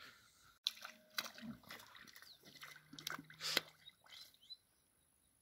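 Faint sloshing of water at the bank as an Orinoco crocodile moves into the lagoon, with scattered knocks and clicks. A few short bird chirps come near the end, and the sound cuts off about four and a half seconds in.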